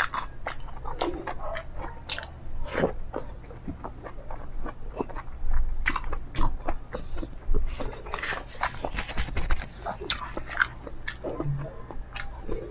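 Close-miked chewing of a person eating with her fingers: wet mouth noises and sharp lip-smacking clicks, busiest and loudest around the middle.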